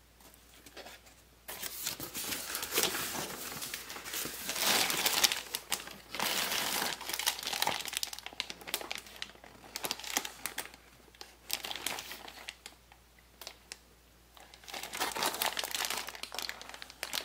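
Packing material being crinkled and handled while parts are unwrapped from the box, in irregular bouts of rustling that start about a second and a half in, with a lull shortly before a last burst near the end.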